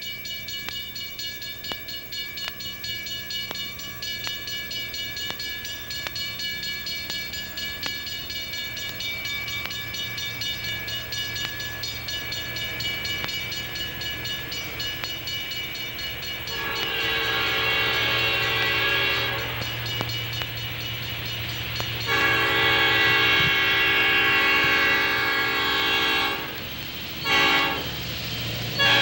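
Passenger train running with a rhythmic clatter of about two beats a second, then its locomotive's chime horn sounding loudly: two long blasts, a short one, then another long, the long-long-short-long grade crossing signal.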